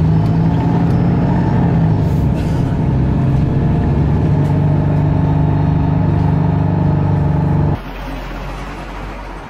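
A road vehicle running with a steady low hum. It cuts off suddenly near the end, leaving a quieter background.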